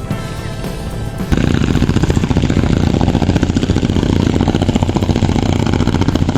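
Background music, cut off about a second in by the loud, rapid, even knocking of a running engine.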